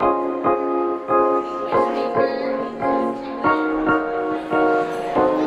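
Piano-led background music, with notes and chords struck in a steady rhythm about twice a second.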